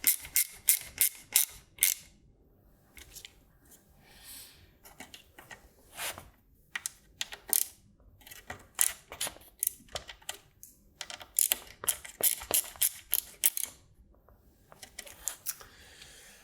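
Runs of sharp clicks from a hand driver working the hex-head bolts of the switch mounting plate tight. There is a fast run at the start, scattered clicks in the middle, and another fast run about two-thirds of the way through.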